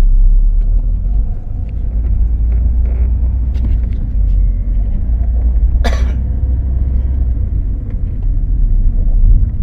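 Car driving: a steady low rumble of engine and road noise, with one brief sharp sound about six seconds in.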